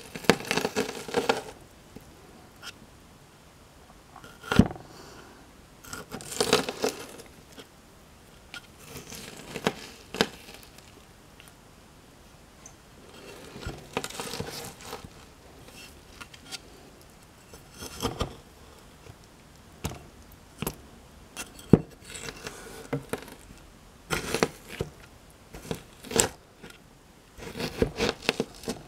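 A rock pressed and ground into a broken pomegranate, crushing its seeds and rind in irregular bursts every second or two, with a few sharp knocks along the way.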